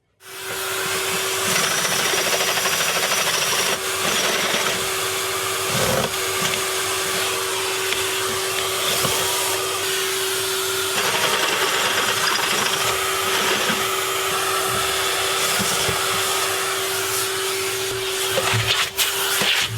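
Electric drill running continuously at a steady whine while drilling, starting abruptly and holding for nearly the whole stretch, with a few clicks near the end.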